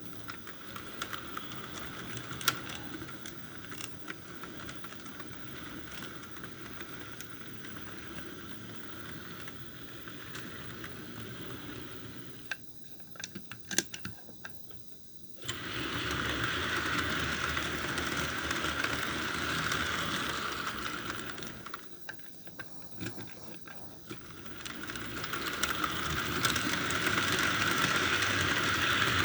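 HO-scale MDC Atlantic steam locomotive running on model track, pulling a string of freight cars, with a steady motor whir and clicking of wheels over the rail joints. The running noise grows louder twice, after about 15 seconds and again near the end, as the train comes close.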